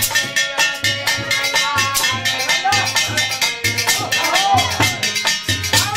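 Devotional folk bhajan: a man singing with wavering held notes over a steady, repeating drum beat and jingling small percussion.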